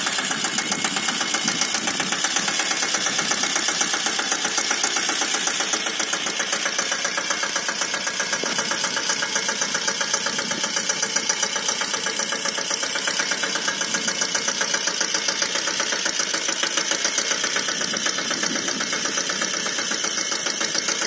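Shakti mini tractor's engine running steadily under load with a fast, even firing beat as it pulls a groundnut digger through the soil.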